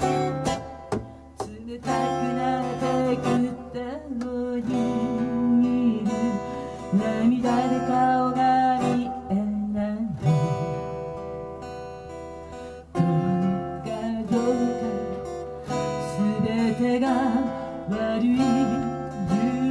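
Acoustic guitar strummed and picked live, with a woman singing a waltz-time arrangement into the microphone.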